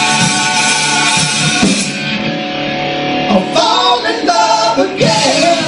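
Singing with musical accompaniment: a long held note over the full backing, which thins out about two seconds in, leaving the voice singing runs that bend up and down in pitch.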